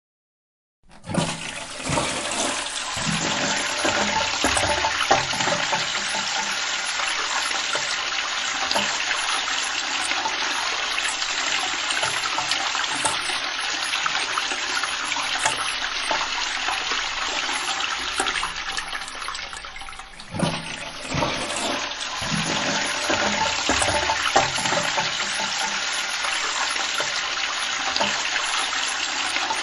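Toilet flushing: water rushing starts suddenly about a second in and runs steadily and loud, with low gurgling as it begins. It dips briefly about two-thirds of the way through, then surges again with more gurgling and keeps rushing.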